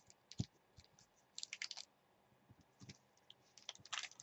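Faint, scattered clicks and light rustles of trading cards being flicked through and slid off a hand-held stack, with a small cluster of clicks about a third of the way in and more near the end.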